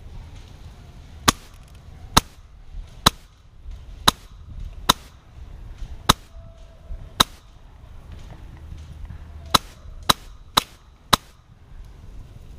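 Polarstar HPA-powered Krytac airsoft rifle firing single shots on semi-auto, about eleven sharp cracks roughly a second apart, with a pause in the middle. Wind rumbles on the microphone underneath.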